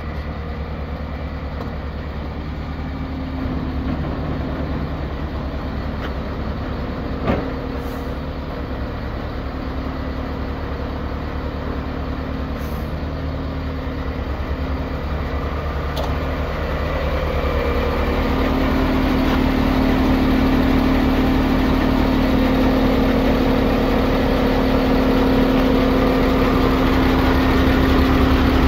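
Renault Premium 320 dCi truck's diesel engine idling steadily, louder in the second half, with a single sharp click about seven seconds in.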